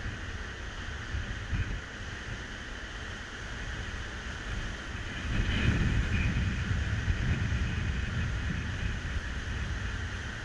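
Wind buffeting the microphone, swelling into a stronger gust about five seconds in, over the steady hiss of surf breaking on the beach.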